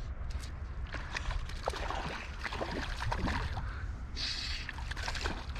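River water splashing, sloshing and gurgling at the surface in a run of short irregular splashes, over a steady low rumble of flowing water.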